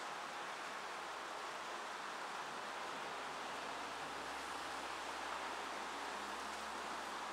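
Steady thunderstorm ambience: an even hiss with no thunderclap or rumble.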